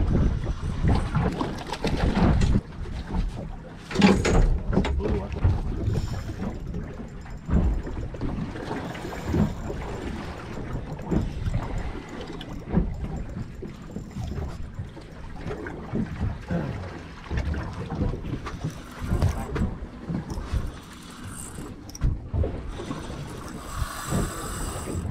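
Wind buffeting the microphone over water noise around a small boat at sea, with irregular knocks and thumps throughout.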